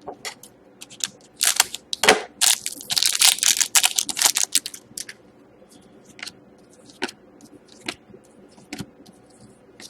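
Hockey card pack wrapper being torn open and crinkled, in a run of crackling rustles, then scattered light clicks and rustles of the cards being handled.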